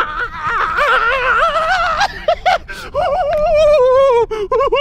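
A man yelling at the top of his voice: a long, high, wavering wordless cry, a choppy break about two seconds in, then another long cry that falls slightly in pitch.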